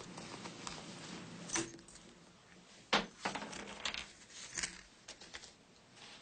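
Light clinks and knocks of small objects being handled, a few scattered over several seconds, the sharpest about three seconds in.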